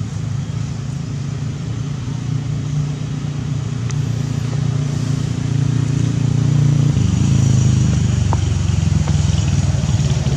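A vehicle engine running steadily with a low hum, getting louder about seven seconds in.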